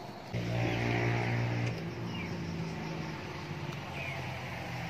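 An engine running at a steady pitch, a low hum that comes in just after the start, is loudest for about the next second and a half, then carries on more quietly.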